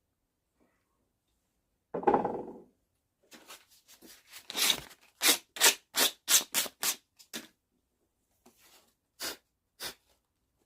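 Olive oil being rubbed into a wooden hammer handle: a brief muffled handling sound about two seconds in, then a run of short rubbing strokes about two a second, and two more strokes near the end.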